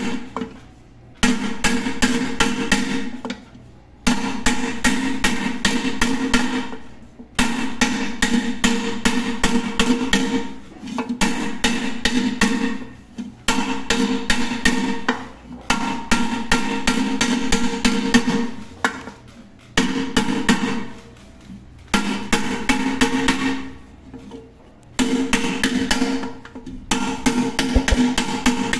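Rapid hammer blows on a pressure cooker, in runs of two to three seconds with short pauses between them; the metal pot rings under each run. The swollen, bulged pot is being beaten back flat.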